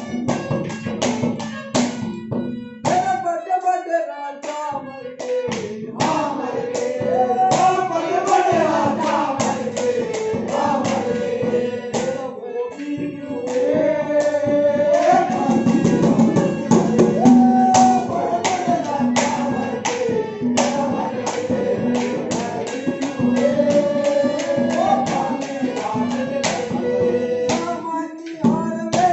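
Haryanvi ragni folk song: a singer's melody over steady drum strokes and instrumental backing. Only the drums and backing are heard at first; the voice comes in about three seconds in.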